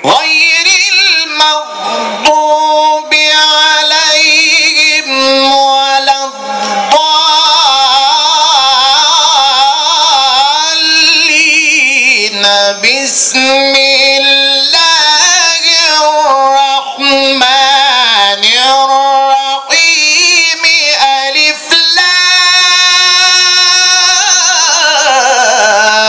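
A male Qur'an reciter chanting in the high, ornamented melodic style of tilawah, amplified through a microphone. It comes as several long phrases with short breaths between them, the voice wavering and gliding through ornaments, and ends on a long high held note that dips near the end.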